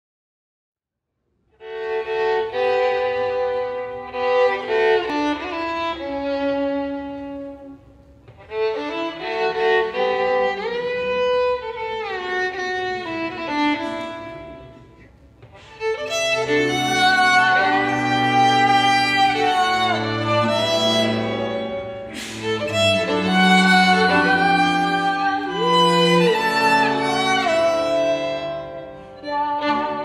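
Solo violin playing a melody with a string quartet of violins, viola and cello. It starts after about a second and a half of silence, in phrases with short breaks. From about halfway, low notes come in and the music gets louder.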